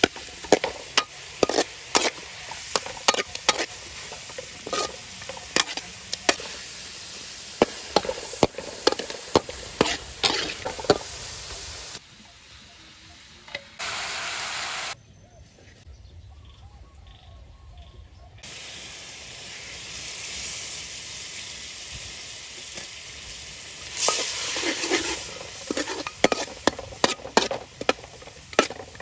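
Snake pieces and herbs sizzling in oil in a large aluminium wok, with a metal spatula scraping and clanking rapidly against the wok. In the middle the sizzle drops to a quieter hiss while the wok is under its lid, then loud stirring and sizzling return near the end.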